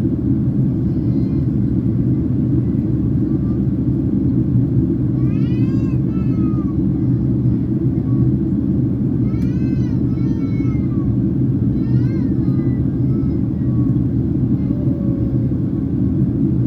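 Steady low rumble of engine and airflow noise inside the cabin of a Boeing 767-300ER in flight. Over it, a high voice wails briefly, rising and falling in pitch, about three times.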